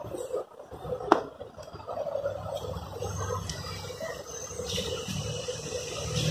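Glossy pages of a large hardcover book being turned and riffled by hand, with a sharp tap about a second in. A low hum runs underneath from about two seconds in.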